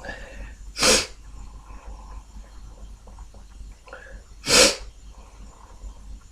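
A man sneezing twice, two short sharp sneezes about three and a half seconds apart, with faint breathing and sniffling between them.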